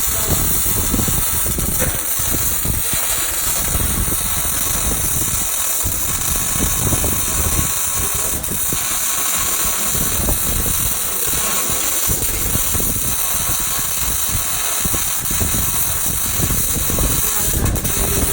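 Electric arc welding: the arc gives a steady, crackling hiss as a bead is laid.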